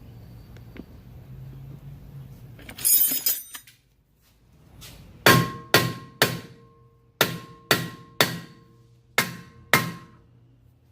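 Hammer blows on the steel rear wheel hub assembly of a Nissan Altima, knocking the hub to release it from the knuckle. There are about nine sharp strikes in quick groups of two or three, each with a short metallic ring, after a brief clatter about three seconds in.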